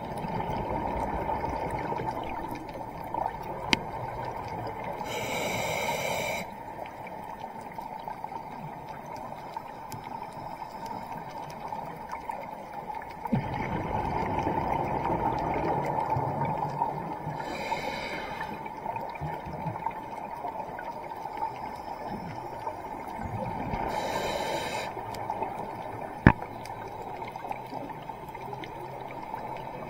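Underwater sound of a scuba diver breathing through a regulator: a steady bubbling exhaust noise that swells and fades over several seconds at a time, broken three times by a short, high hiss of breath.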